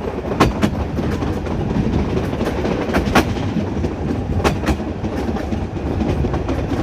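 Metre-gauge train running on the track: a steady rumble of wheels on rail, with sharp clacks as the wheels pass over rail joints, some coming in quick pairs.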